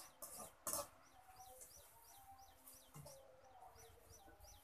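Chickens: faint, repeated high falling peeps about twice a second, with a few short lower clucks. A brief burst of noise about half a second in.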